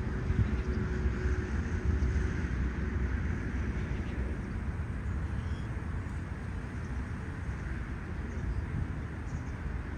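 Gusty wind buffeting the microphone over the low, steady rumble of a distant Airbus A380 on approach.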